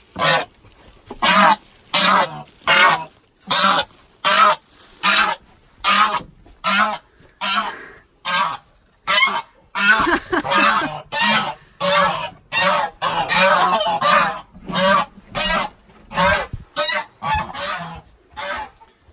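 A domestic goose honking loudly over and over, harsh calls coming about one every three quarters of a second and running together for a few seconds in the middle, as it is caught and carried by hand.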